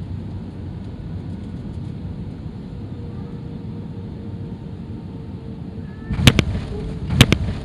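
Steady airliner cabin noise as the plane descends to land. Near the end come a few sharp, loud thumps.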